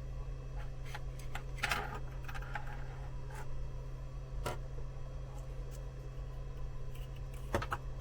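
Scattered small clicks and taps of hand tools handling a circuit board and its wires during soldering, about five of them, the sharpest near the end, over a steady low hum.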